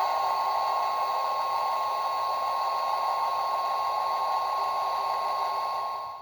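A small sound-effect toy's tiny speaker playing a steady rushing hiss with a high held tone over it, which cuts off abruptly at the end.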